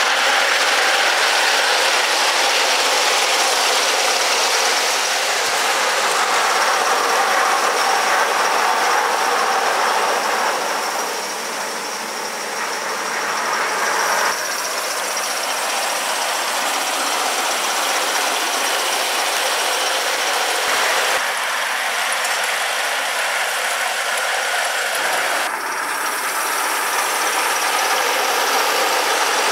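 Gauge 1 live-steam model of a BR Standard 4MT locomotive running along its track with a rake of coaches, a steady mechanical rattle of the running train. The sound dips briefly just before halfway and then picks up again.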